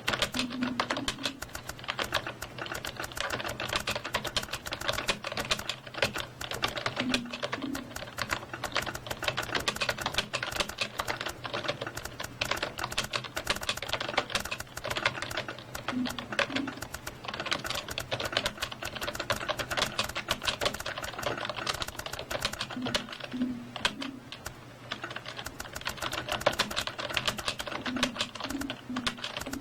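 Computer keyboard being typed on fast and without pause, a dense stream of key clicks. It is a timed typing test at about 59 words per minute.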